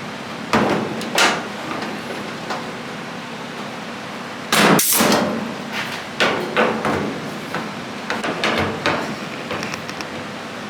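Sharp metal knocks and clanks on sheet-metal body panels, irregularly spaced, with a louder, longer clatter about four and a half seconds in.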